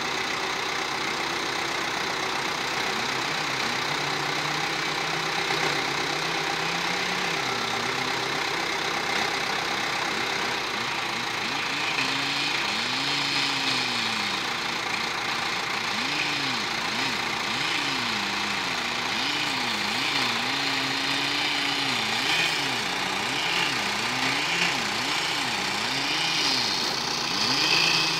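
Chainsaw engine running, its pitch wavering at first, then rising and falling about once a second from halfway through as the saw is throttled and loaded while cutting into a tree trunk.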